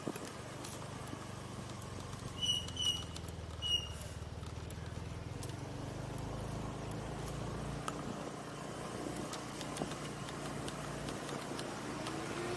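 Motorbike engine running steadily while riding, with wind and road noise. About two and a half to four seconds in, three short high-pitched beeps sound.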